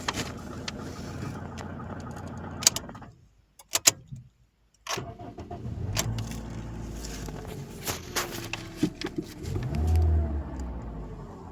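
A car engine running, with a few sharp clicks and a break of near silence of about two seconds midway; after it a low rumble returns, with tones that rise and fall and a louder low swell near the end.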